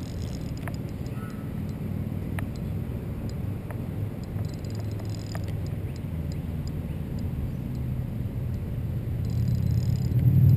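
Spinning reel being wound while playing a hooked carp on light line: a steady low whirring rumble from the reel's gears that grows louder near the end.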